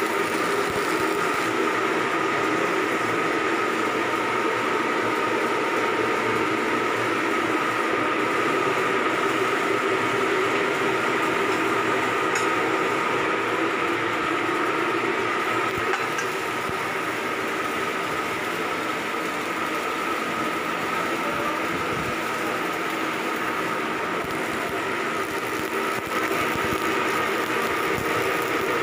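Steady drone of running machinery, with a constant hum and a higher steady whine over it. The level dips slightly about halfway through.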